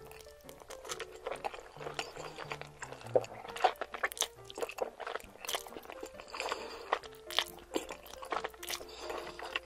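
Close-miked chewing and slurping of creamy chicken fettuccine alfredo, with many short wet mouth clicks, over background music.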